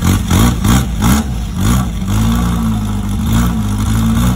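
Toyota 3K 1.2-litre four-cylinder engine, out of the car on a makeshift test rig, running just after start-up: revved up and down a few times, then running steadily. This is a test run of the engine before purchase.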